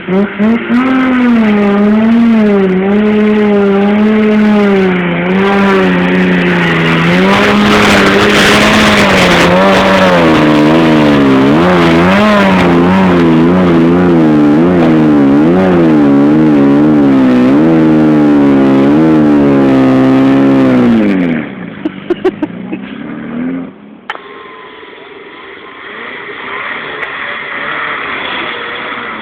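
Trials car engine revving hard under load for about twenty seconds, its pitch rising and falling over and over as it works up a trial section. Then the revs drop away suddenly, a few quick throttle blips follow, and the engine settles to a lower, quieter running.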